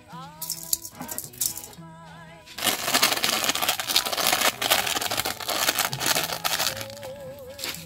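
Background music: wavering, gliding notes like singing for the first two and a half seconds. Then a loud, dense rattling noise runs almost to the end, with another wavering note over it near the end.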